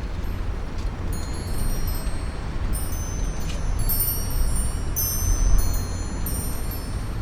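Metal wind chimes ringing in strong wind, many high tones struck in quick, overlapping clusters, over a steady low rumble of wind that swells briefly about five and a half seconds in.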